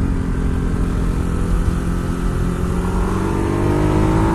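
Ducati Hyperstrada's 821 cc V-twin engine pulling under way. It holds a steady pitch for the first couple of seconds, then rises as the bike accelerates near the end.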